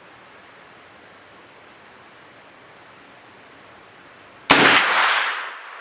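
A single shot from a Thureon Defense 9mm pistol-caliber carbine about four and a half seconds in, its report dying away over about a second, over a steady background hiss.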